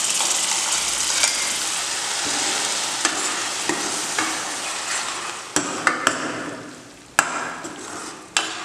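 Freshly added tomato paste sizzling in hot oil with fried onion paste and spices as a ladle stirs it, clinking sharply against the pan several times. The sizzle fades away after about six seconds.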